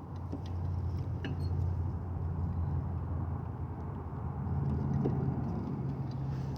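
Low steady rumble of a running vehicle engine, growing a little louder about four seconds in, with a few faint clicks.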